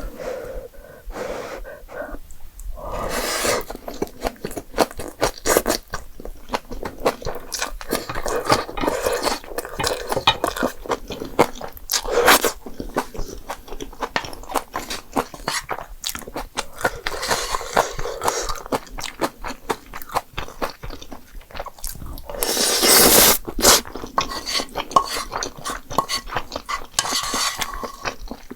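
Close-miked eating: a person chewing and crunching jjapagetti noodles and green onion kimchi, with many small wet mouth clicks and a few longer, louder noisy stretches.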